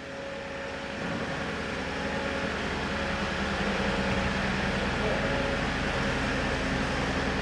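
Steady background ambience of a large hangar: a low hum with a broad wash of noise, fading in over the first second.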